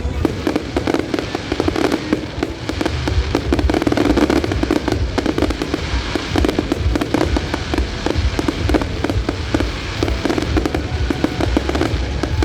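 Fireworks display going off without a break: many overlapping bangs and crackles, several a second, with music playing underneath.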